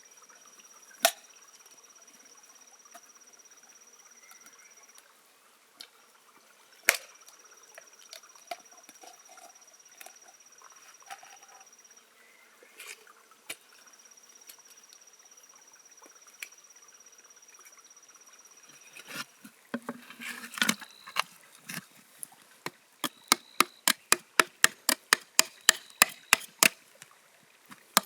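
A thin, steady high whine in three long stretches, with an occasional sharp click. About two-thirds of the way through, a fast, even run of sharp knocks begins, about three a second.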